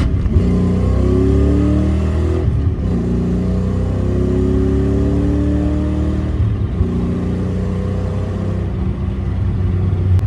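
Ford Fox-body Mustang accelerating through the gears of its T5 manual gearbox. The engine rises in pitch, then drops back at gear changes about two and a half and six and a half seconds in.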